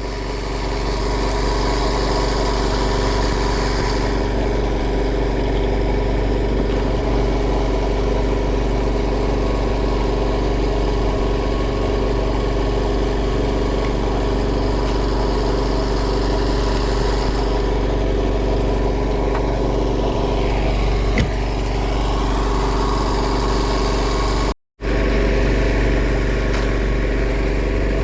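Small fishing boat's engine running steadily at a constant speed, with the sound cutting out for a split second near the end.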